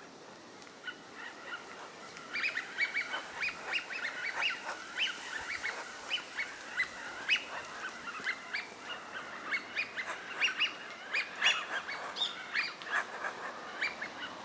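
A flock of Eurasian wigeon calling: many short, overlapping calls that start sparsely about a second in and then come thick and fast.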